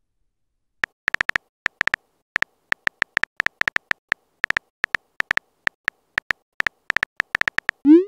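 Smartphone keyboard typing clicks: a short tick for each key tapped, at an uneven pace. Right at the end comes a quick rising swoosh, the message-sent sound.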